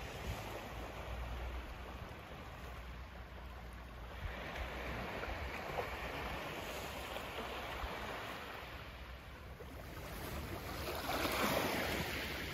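Small waves lapping and washing onto a pebbly shoreline, over a low rumble of wind on the microphone. The wash grows louder near the end.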